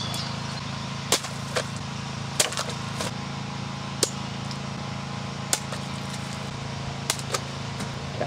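Sharp snaps and clicks at irregular intervals, about a dozen in all, from knife swings at a plastic water bottle. The first comes as a blade hits the bottle and sprays water off it.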